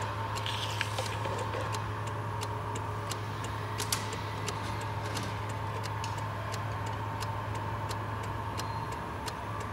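Car engine running with a steady hum and a light irregular ticking, about two or three ticks a second.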